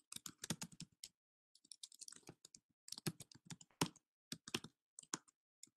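Typing on a computer keyboard: a faint run of irregular keystrokes, with a short pause about a second in.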